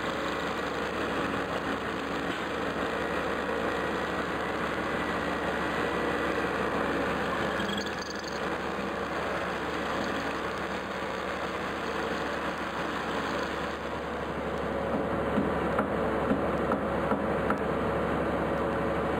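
An engine running steadily, with a few light knocks near the end.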